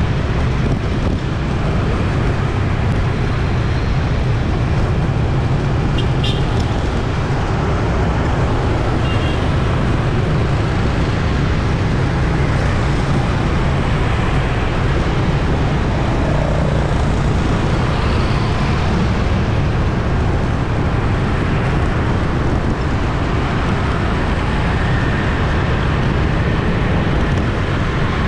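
Busy city street traffic: a steady wash of engine and tyre noise, with a few short high beeps near the start and about six seconds in.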